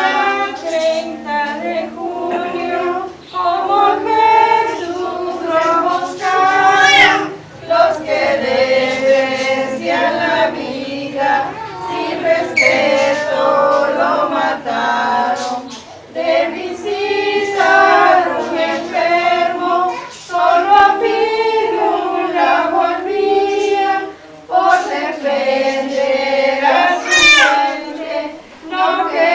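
A group of women singing a religious song together, in phrases a few seconds long with short breaks between them.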